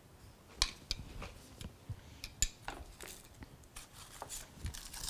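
Faint, scattered clicks and taps of a metal spoon against a glass jar and a glass mixing bowl while peach preserves are scooped out, with light knocks of items being handled on the counter.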